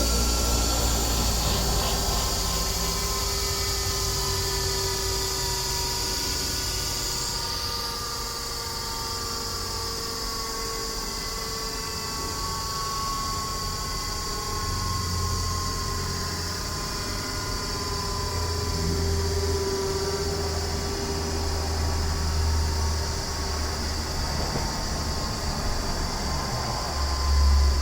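A Craftsman third-horsepower bench grinder with 7-inch wheels coasting down after being switched off. Its whine falls slowly in pitch, and a low rumble grows stronger in the second half as the wheels slow.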